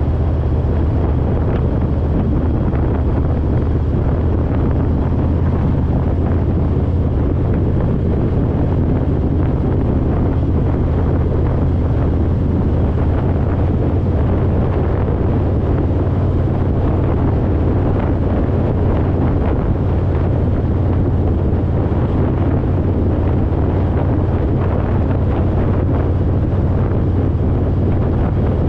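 Harley-Davidson Road Glide's V-twin engine running steadily at cruising speed, mixed with heavy wind noise on the microphone.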